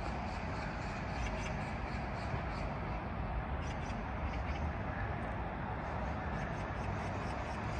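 Early-morning city ambience among high-rise apartment blocks: a steady low hum, with short, high chirps from small birds scattered through it, fewer in the second half.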